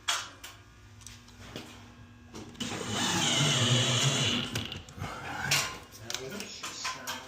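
A handheld power drill runs in one steady burst of about two seconds, a little under halfway in, with scattered clicks and knocks of hardware around it.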